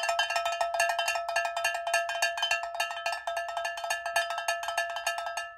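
A metal bell rung rapidly with many strokes a second, its tone held steady throughout; it cuts off suddenly at the end.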